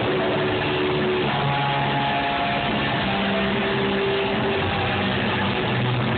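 Live industrial metal band playing loud, with distorted guitars and bass holding long notes that change every second or two. It is recorded on a phone microphone from the crowd, so it sounds muffled and flattened.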